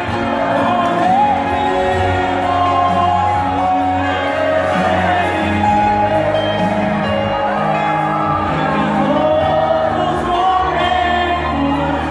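Man singing a gospel praise song into a handheld microphone over amplified musical accompaniment, with a steady bass line holding long notes under the voice.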